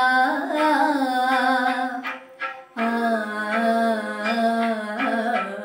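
A girl singing alone, holding long notes that bend and waver in an ornamented line, with a short pause for breath a little over two seconds in.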